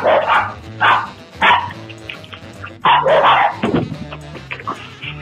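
Small dogs barking in short, loud bursts, four or five times, over background music.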